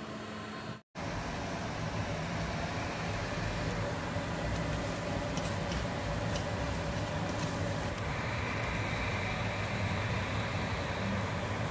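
Food sizzling steadily in frying pans, with a few light clicks of a fork against the pan. The sound starts after a brief cut about a second in.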